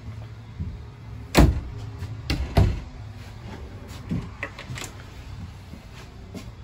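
Wooden cabinet doors in a motorhome being shut, heard as a few sharp knocks: two loud ones in the first three seconds, then lighter clicks.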